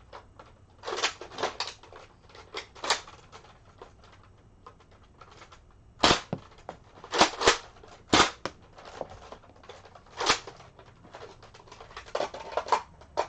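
Nerf Longstrike CS-6 foam-dart blaster being cocked and fired again and again: a string of sharp plastic clacks and pops at irregular intervals, some in quick pairs.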